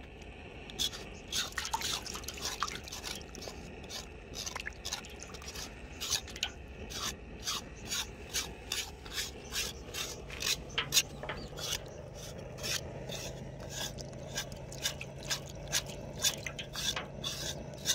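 A knife blade scraping the scorched outer skin off a wet beef trotter that has been softened in hot water, cleaning it down to white. The scrapes come in quick, repeated strokes, about two or three a second.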